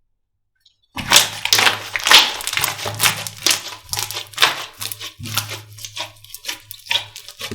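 Slime being squeezed and pressed by hand, making a dense run of sharp, irregular crackles and pops. It starts about a second in after a short silence.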